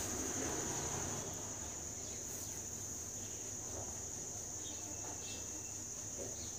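Faint, steady, high-pitched insect trill, like a cricket, running without a break.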